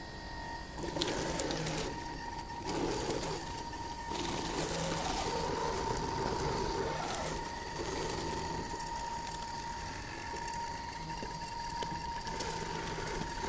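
Electric motor and gearbox of an Axial Honcho RC rock crawler whining as it crawls over leaves and roots. The pitch and level rise and fall with the throttle, with bursts of rustling from the tyres in dry leaves.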